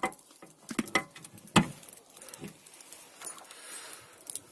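A key being worked in the lock of a metal electrical enclosure door, giving several sharp metallic clicks, the loudest about a second and a half in, with a light jingle of keys.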